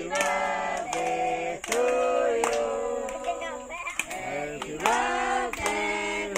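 A group of women and children singing a birthday song together, with hand claps at a steady beat.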